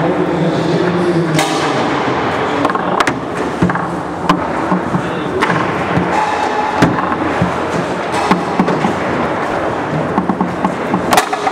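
Foosball play on a Roberto Sport competition table: irregular sharp clacks and knocks of the ball striking the plastic men and the table walls, about one or two a second, with music playing in the background.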